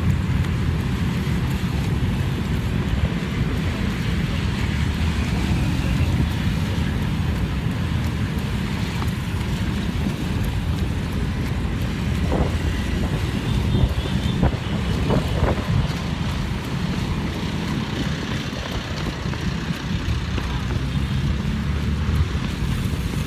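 Steady road traffic noise along a busy city boulevard, mixed with a low rumble from a handheld phone microphone jostled while jogging.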